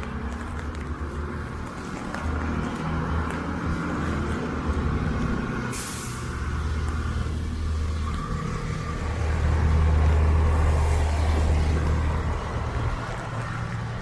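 Street traffic on a wet city road: a heavy vehicle's engine running and swelling loudest about ten seconds in, with a short sharp hiss about six seconds in.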